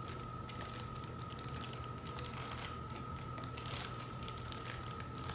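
Packaging crinkling and crackling in quick, irregular clicks as a boxed model tank car is worked free by hand. A steady high-pitched whine and a low hum run underneath.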